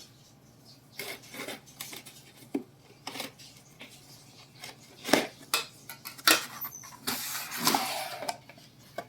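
Scattered clinks and knocks of hard objects being handled, with a short stretch of scraping or rustling near the end.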